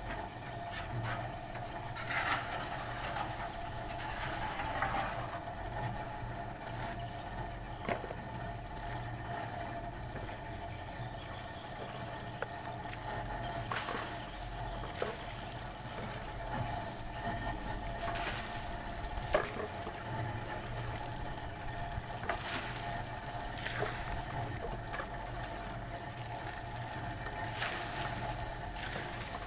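Steady mechanical hum with scattered clicks and knocks over it.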